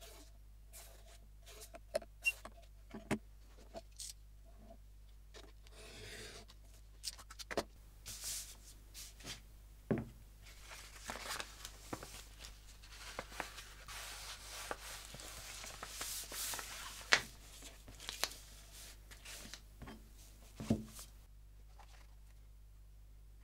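Bookbinding materials being handled on a cutting mat: a few sharp taps and knocks of board and metal ruler, then a long stretch of paper and bookcloth rustling and rubbing with a couple of louder knocks. A faint steady low hum runs underneath.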